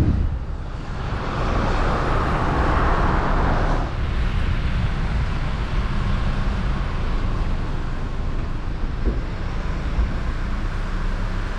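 Motor vehicle driving along: a steady low engine and road rumble, with a louder rushing noise for the first few seconds that cuts off suddenly.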